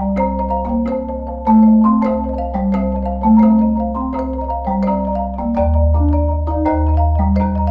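Marimba quartet playing a fast, even run of mallet strokes over held low bass notes. The bass moves to a new note a little past halfway, and the playing swells louder twice in the first half.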